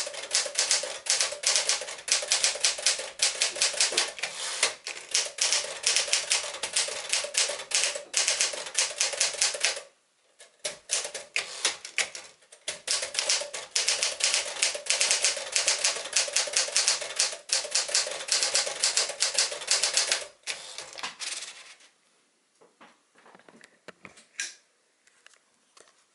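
1963 Smith-Corona Sterling 5AX manual portable typewriter being typed on at speed, its keystrokes clacking in a rapid run. The typing breaks off briefly about ten seconds in, picks up again, and stops a few seconds before the end, leaving a few faint clicks.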